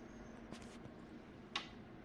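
A single key press on an AULA F99 mechanical keyboard with linear switches, one sharp click about one and a half seconds in, preceded by a fainter soft tap, over a low steady hum.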